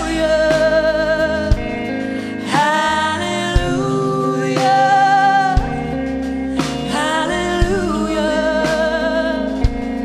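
A woman singing live into a microphone, holding long notes with vibrato and short breaks between phrases, over instrumental accompaniment with a few sharp hits.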